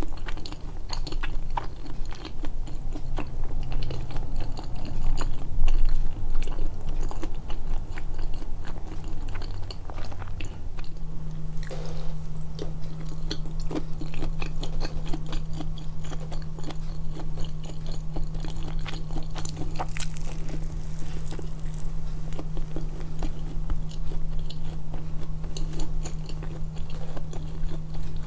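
Close-miked chewing and biting of food, with many small irregular crunches and mouth clicks. A steady low hum joins in partway through and stays.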